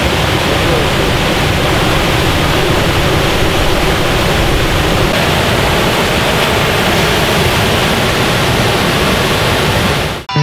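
Water rushing out of a hydroelectric dam's outflow and pouring into the river below, a loud, steady rushing noise. It cuts off abruptly at the very end.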